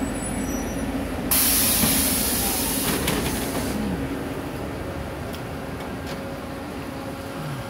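Bus's pneumatic doors opening with a loud hiss of released compressed air starting about a second in and dying away over a couple of seconds, over the low hum of the bus.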